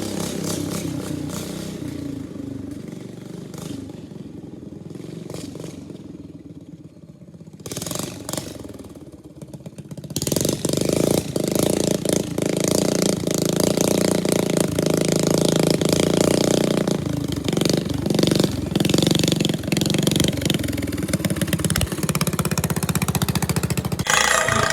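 Single-cylinder Briggs & Stratton 13.5 hp engine of a Craftsman riding lawn tractor running. It drops lower for a few seconds, then picks up and runs louder and steady from about ten seconds in.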